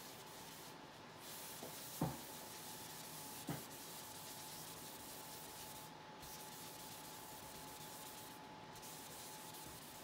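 A wad of tissue rubbing and dabbing alcohol ink across a sheet of paper: a soft, continuous rubbing. Two light knocks come about two and three and a half seconds in.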